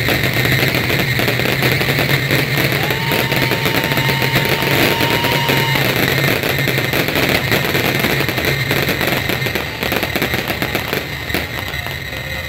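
Fireworks crackling and popping in rapid, dense volleys over the steady drone of dirt-track race car engines; the crackle thins out in the last few seconds.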